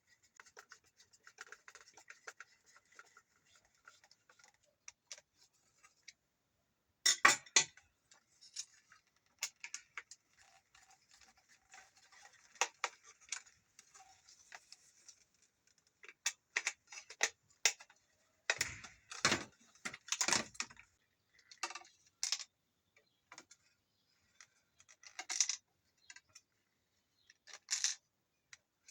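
Irregular small clicks, taps and rubbing of plastic parts and small tools being handled during work on a Dyson V10 cordless vacuum. The loudest knocks come about seven seconds in and in a cluster near twenty seconds.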